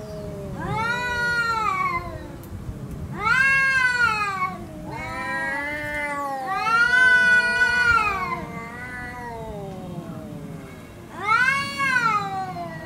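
Two cats, a brown tabby and a black cat, yowling at each other in a territorial standoff before a fight. There are four long drawn-out wails that rise and fall in pitch, over a lower steady moan, and the two voices overlap in the middle.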